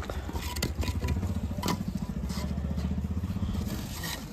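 A small engine running steadily close by, easing off near the end, while bricks clink and knock as they are lifted from a heap, with a few sharp knocks in the first two seconds.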